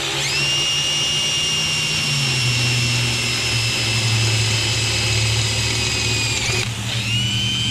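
Electric drill drilling out holes in a battery box: a steady high whine that spins up, runs for about six seconds and winds down, then a short second run near the end.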